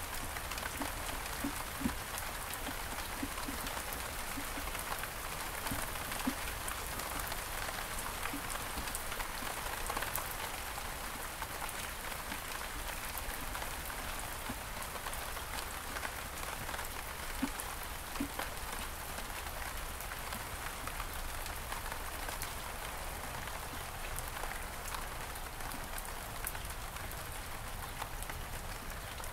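Steady rain falling on several kinds of surfaces, with scattered louder drops landing close by.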